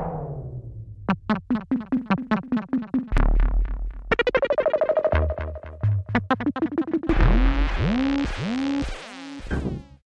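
Electronic intro music on synthesizer: a falling sweep, then quick repeated notes over a deep bass that comes in about three seconds in, with bending notes near the end before it stops.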